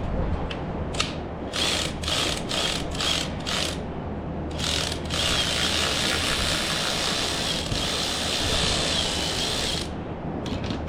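Socket ratchet wrench clicking as it turns a fastener: several short strokes, then a steady run of ratcheting for about five seconds.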